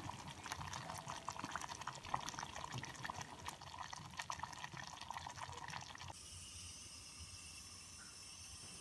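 Faint crackling and bubbling from a pot of tomato dal with hot tempering oil just stirred in. The crackle stops abruptly about six seconds in, leaving only a faint steady hiss.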